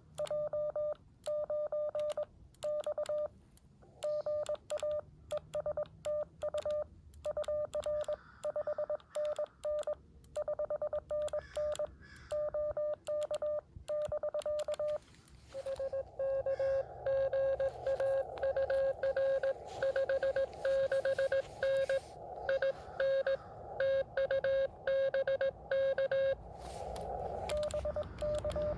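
Morse code (CW) tones from a Xiegu X6100 transceiver's speaker, keyed in dits and dahs. For about the first half a steady-pitched tone is sent with silence between the elements, typical of the operator's own sending with the receiver muted. About halfway through a slightly lower-pitched signal comes in over steady band hiss: a station answering on the air.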